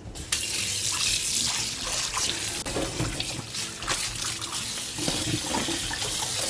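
Kitchen tap running steadily into a pan in a stainless steel sink, the stream splashing over a bamboo strainer and boiled taro stems. The water starts about a third of a second in, filling the pan so the blanched dried taro stems can soak.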